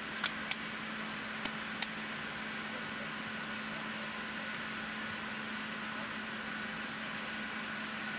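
Steady hum inside an Airbus A380's passenger cabin on the ground, with a constant low tone and a fainter high whine. A few sharp clicks come in the first two seconds.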